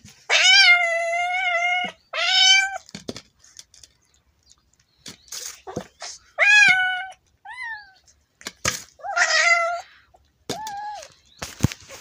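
Domestic cat yowling in drawn-out wails, about six calls, the first the longest at over a second and the later ones shorter, with a few sharp clicks between them. It is a warning yowl from a cat guarding the rat it is eating while a person stands close.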